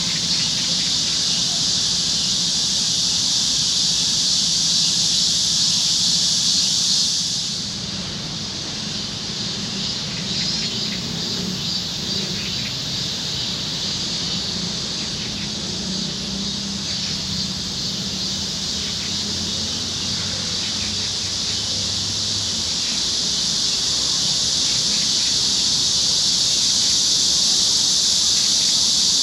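A chorus of cicadas in summer trees buzzing loudly and steadily in a high shrill drone; it eases off a little about seven seconds in, then slowly swells back up.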